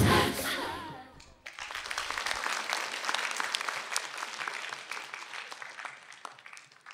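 The dance music ends about a second in, and then an audience applauds, the clapping dying away near the end.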